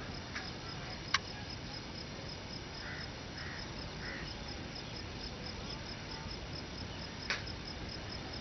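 Open-air field ambience: a steady hiss, with an insect's high chirping in even, rapid pulses. Two sharp clicks come about a second in and near the end, and three soft short calls come about three to four seconds in.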